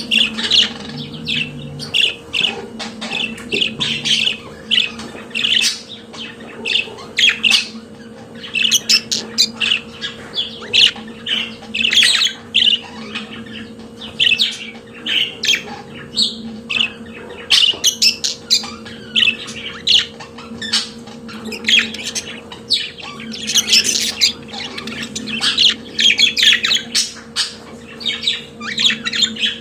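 Budgerigar warbling: a rapid, continuous chatter of short chirps and squawks, with a faint steady hum underneath.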